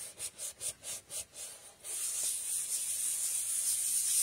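Hands rubbing a sheet of cardstock flat against a craft mat to press the adhesive down: several short scratchy strokes, then from about two seconds in a steady, high hissing rub.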